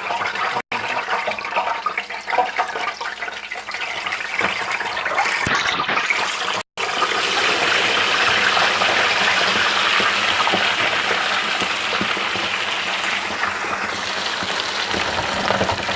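Baked turkey wings deep-frying in hot grease: a steady sizzle. It breaks off twice for an instant, and after the second break, about seven seconds in, the sizzle is louder and fuller.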